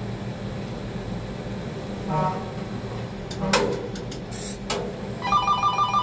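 A steady low hum, with a short click and a brief burst of hiss in the middle. About five seconds in, a fast pulsing electronic beep starts, about eight pulses a second.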